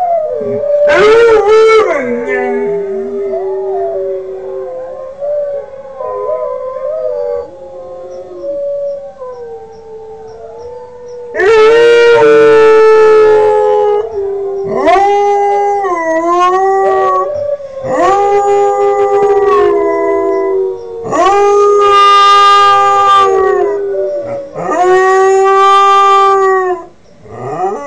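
Five-month-old Northern Inuit dog puppy howling. A quieter, wavering howl runs through the first half; from about halfway come five long, loud howls with short breaks between them.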